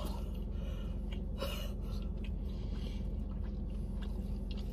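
Faint chewing with a few small mouth clicks over a steady low hum inside a car.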